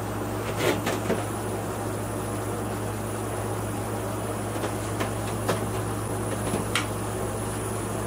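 Laguna Revo 18|36 wood lathe being brought up to speed by its speed dial, spinning a large walnut-and-resin blank: a steady hum, with a thin high whine that sets in about a second in and a few faint clicks.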